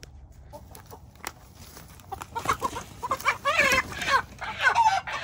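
A hen squawking loudly and repeatedly as she is caught by hand. The squawks start about two seconds in, with her wings flapping.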